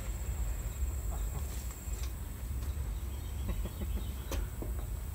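Footsteps crunching on leaf litter and twigs, with scattered clicks and a low rumble of a handheld microphone being carried. A steady high insect drone runs underneath.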